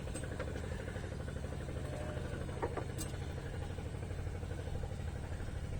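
Small boat engine running steadily at a low idle, a low even rumble with a faint click about three seconds in.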